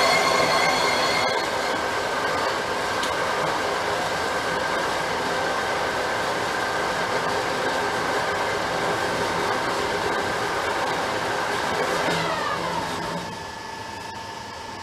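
Metal lathe cutting the face of a cross-drilled, vented cast-iron brake rotor from a Porsche Boxster. A high squeal lasts about the first second, then steady running and cutting noise follows. About twelve seconds in, the lathe is switched off and winds down with a falling whine.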